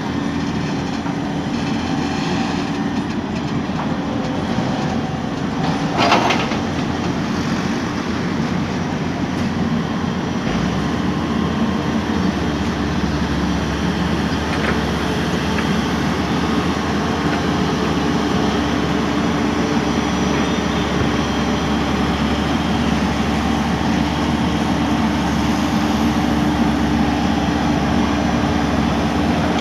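Tata Hitachi excavator's diesel engine running steadily, with a single sharp knock about six seconds in; its low rumble grows stronger about ten seconds in.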